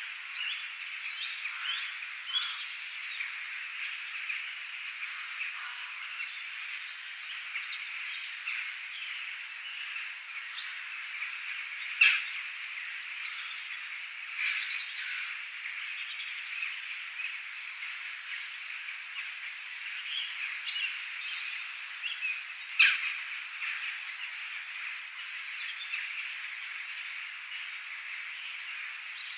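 Birds chirping and calling over a steady, high-pitched background chorus. Two sharp, loud strokes stand out, about twelve seconds in and again near twenty-three seconds.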